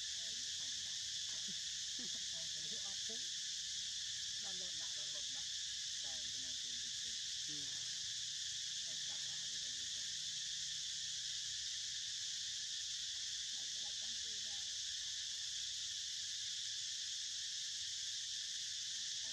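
Insects singing in a steady, unbroken high-pitched chorus.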